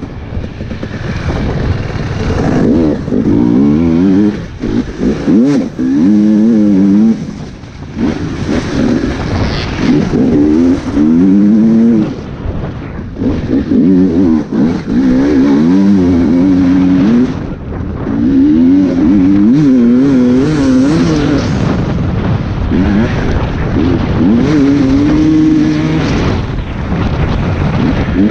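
Dirt bike engine being ridden hard over rough ground, revving up and easing off again and again, its pitch climbing and falling with each burst of throttle and gear change. There are several brief lulls where the throttle is shut off.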